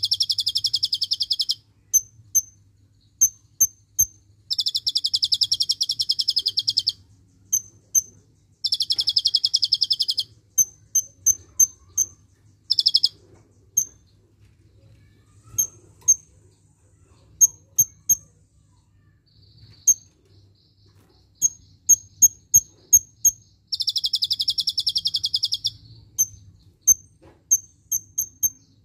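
Kolibri ninja sunbird singing: repeated sharp, high chirps broken by four rapid, dense trills of about two seconds each and one brief trill. The trills are the 'tembakan' bursts learned from the cililin.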